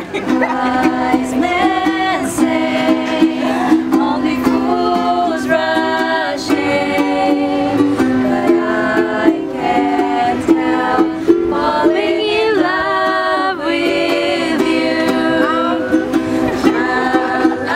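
A ukulele strummed while voices sing a song along with it.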